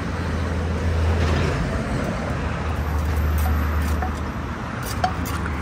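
Steady low rumble of road traffic passing close by, with a few light knocks of the wooden pestle in the clay mortar near the end.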